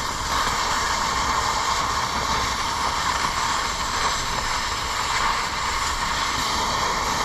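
Cutting torch burning steadily through a steel mounting plate, a continuous even hiss.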